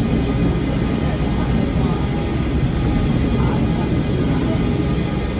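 Steady low rumble with indistinct voices of people talking in the background.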